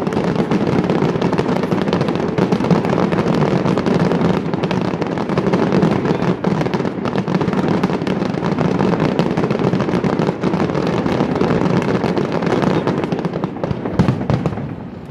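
A rapid-fire barrage of aerial firework shells: many bangs and crackles follow one another so closely that they run together into a continuous rumble, easing off near the end.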